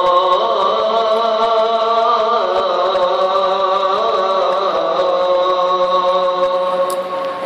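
A muezzin's call to prayer (adhan) carried over loudspeakers: one long drawn-out sung phrase, the pitch slowly winding up and down, dying away near the end.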